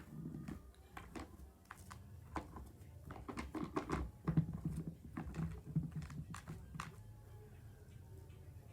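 Scattered light clicks and knocks, as of small hard objects being handled and set down, over a low steady hum; the clicks thin out and stop about seven seconds in.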